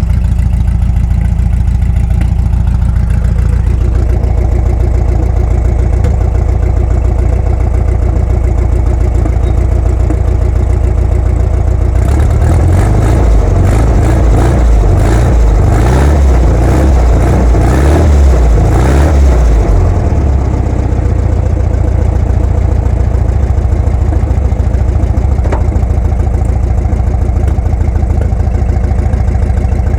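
1974 Volkswagen Fusca (Beetle)'s air-cooled flat-four engine idling with a steady rumble. It is revved in a louder, rougher stretch of several seconds near the middle, then drops back to idle.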